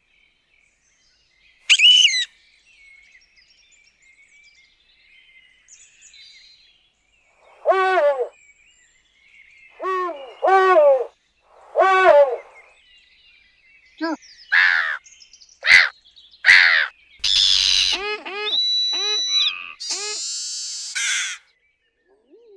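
Assorted bird calls in separate bursts with quiet gaps: a high chirp early, then a run of lower, fuller repeated calls and quick high chirps that come thicker in the second half.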